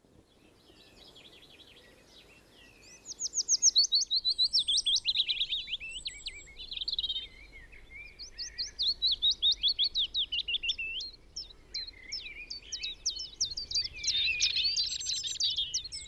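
Dawn chorus of songbirds singing over one another in fast, high trills and runs of repeated notes. It starts faint and grows louder about three seconds in.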